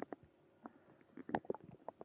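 Human stomach growling: a run of short, irregular gurgles and squelching pops, bunched most densely just past the middle.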